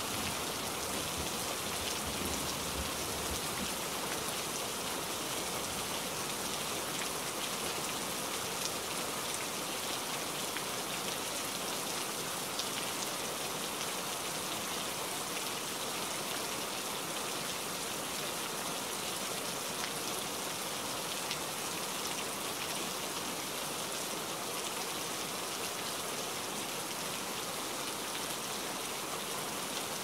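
Steady rain falling on tree leaves, an even hiss, with the tail of a low thunder rumble dying away in the first few seconds.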